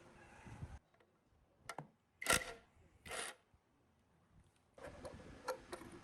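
Workshop handwork on engine parts: two short scraping strokes about a second apart, the first the loudest, with a few light clicks and taps before and after.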